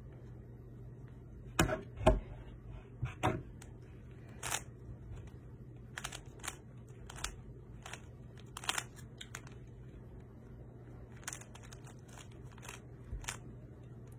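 Speed cube (Rubik's-type puzzle) being turned by hand: the plastic layers click and clack as they snap round. The clicks come singly and in short irregular runs, loudest about two seconds in.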